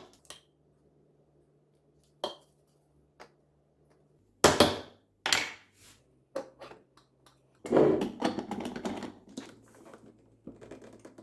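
Espresso portafilter, filter basket and measuring spoon with tamper being handled while the ground coffee is filled and pressed. A few separate knocks and clinks come first, then a longer scraping, clattering stretch about eight seconds in.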